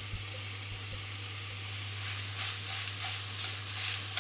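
Crumbled sausage meat and diced onion sizzling in a hot stainless-steel frying pan, with a spatula stirring and breaking up the meat, its strokes coming through the hiss from about two seconds in.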